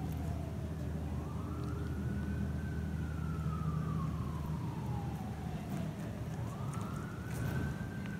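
An emergency-vehicle siren sounding a slow wail. It rises, glides slowly down over several seconds, and starts a second rise near the end, over a steady low hum.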